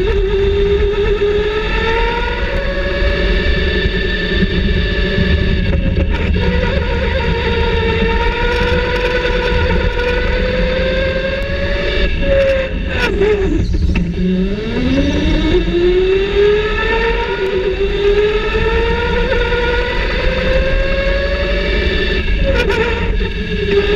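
Electric go-kart motor whining, its pitch rising and falling with speed over a steady low rumble. About halfway through the whine drops sharply as the kart slows hard, then climbs again as it speeds back up.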